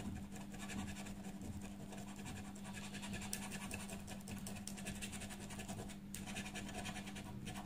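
A coin scratching the coating off a paper scratch-off lottery ticket: rapid short strokes, with a brief pause about six seconds in.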